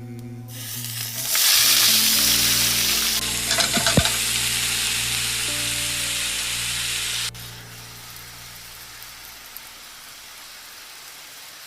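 Food sizzling in a hot frying pan, loud from about a second in, with a few clicks of stirring. The loud sizzle cuts off suddenly about seven seconds in, leaving a fainter sizzle.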